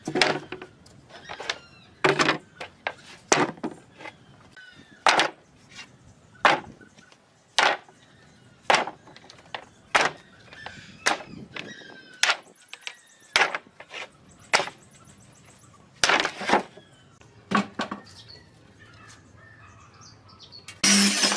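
A tool striking wood in sharp, irregular blows, roughly one every second, like chopping or hammering pine. Near the end there is a louder, longer burst of noise.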